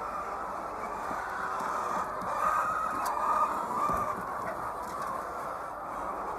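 A large flock of laying hens clucking together in a continuous din, swelling a little in the middle.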